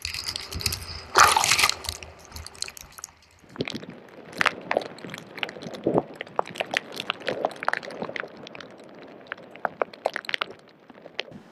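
Water sloshing and splashing, with many short, sharp splashes over a rushing background and one loud rushing burst about a second in.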